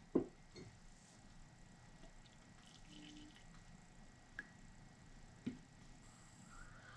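Coffee poured from a stainless steel percolator into a ceramic mug, the handling quiet overall. A sharp knock just after the start is the loudest sound, and another knock comes about five and a half seconds in as the pot is set back down.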